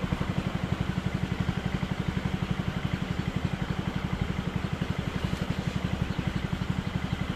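A small engine running steadily at idle, with an even pulsing beat about ten times a second.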